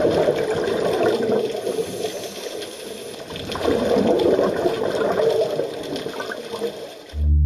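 Underwater bubbling from a scuba diver's regulator exhaust, in two long swells a few seconds apart.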